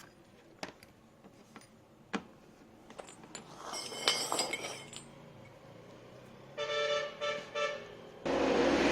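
A few sharp clicks and a brief metallic clinking, then three short electronic beeps from an LG washing machine's control panel. Near the end a loud, steady rushing noise starts suddenly.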